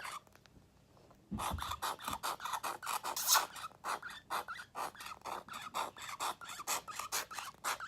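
Quick rhythmic rasping strokes, about six a second, from hands working slime-making materials. The strokes stop for about a second near the start, then resume.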